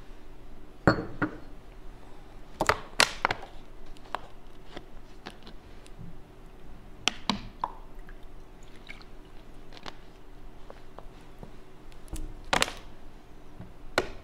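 Glass and water bottle handled close to the microphone: a scattering of sharp clinks and knocks, loudest about a second in and around three seconds, over a steady low hum.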